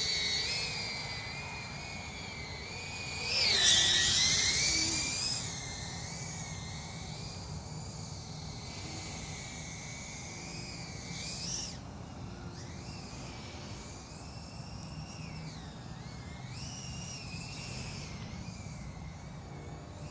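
FPV quadcopter drone motors and propellers whining, the pitch rising and falling with throttle. The whine swells loudest for a second or two about four seconds in.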